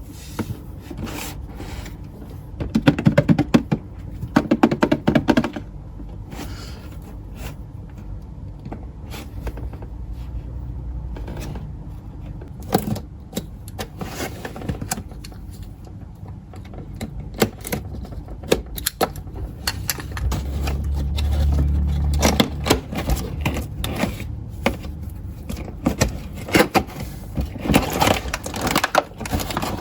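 Close-up clicks, taps and scrapes of small objects being handled while slime is made, in an irregular run that is busiest at the start and near the end. A low hum comes in for about two seconds past the middle.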